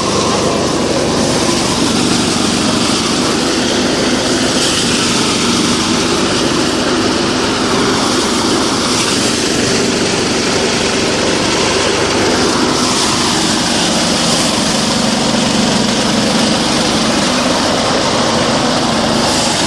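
Engine-driven rice threshing machine running steadily: an engine hum under a constant rushing noise.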